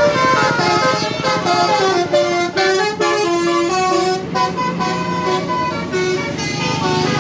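A bus's Basuri 'telolet' musical horn plays a tune, one quick note after another with no break.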